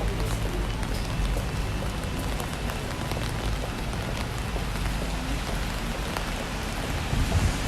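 Steady rain pattering on an umbrella: many small drop hits over an even hiss, with a low steady rumble underneath.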